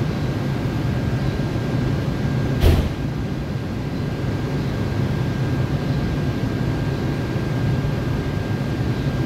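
Steady hum of a stationary subway car's ventilation and onboard equipment with its doors open, with a thin steady high whine running under it. A single sharp knock sounds about two and a half seconds in.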